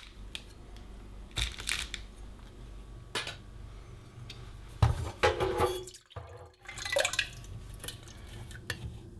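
Irregular clinks and knocks of hard objects being handled, over a steady low hum, with a brief break about six seconds in.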